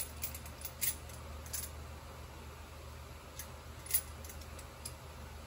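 A handful of light, sharp clicks and clinks of small objects being handled, spaced irregularly, over a steady low hum.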